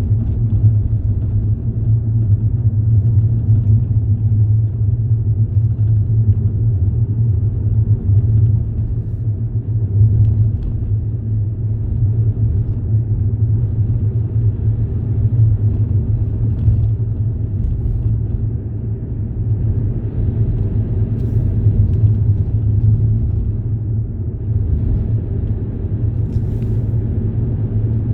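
Steady low rumble of a moving vehicle, an even drone with no breaks.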